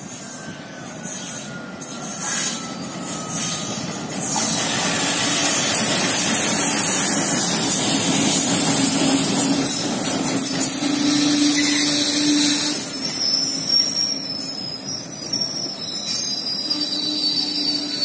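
Diesel-hauled express train passing close by at speed. It grows louder over the first few seconds as the locomotive comes through, then the coaches rush past with a steady noise of wheels on rails. In the last few seconds there is a high, thin wheel squeal.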